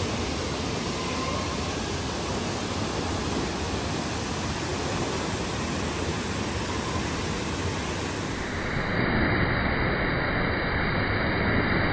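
Steady rushing of a waterfall. About nine seconds in, the sound changes abruptly, getting a little louder and duller.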